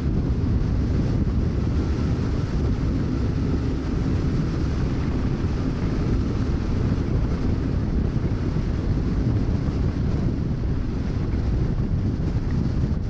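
Steady heavy wind rush buffeting the microphone of a mountain bike's camera on a descent at 30 to 40 mph, mixed with the bike's tyres rolling over loose gravel.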